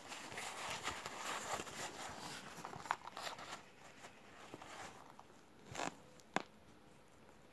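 Rustling and crinkling of zippered fabric amenity kit pouches being handled and laid down, mostly in the first half, with a few sharp taps later, the loudest about six seconds in.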